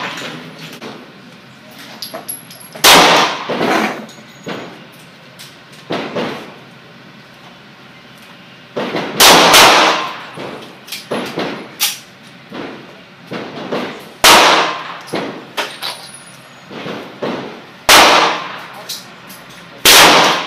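Glock 20 pistol in 10mm Auto fired slow-fire, several loud shots a few seconds apart, each with a short ringing tail. Fainter bangs fall between them.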